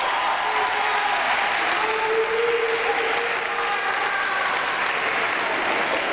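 Audience applauding steadily, a dense, even clatter of many hands.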